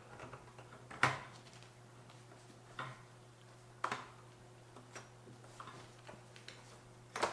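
Scattered plastic clicks and knocks as a laptop and its bottom cover are handled and fitted back on, the sharpest about a second in and a double one near the end, over a faint steady hum.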